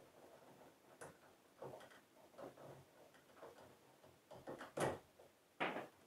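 Scattered small clicks and rustles of hand tools and electrical cable being handled at a wall box, roughly one a second, with a couple of sharper clicks about five seconds in and near the end.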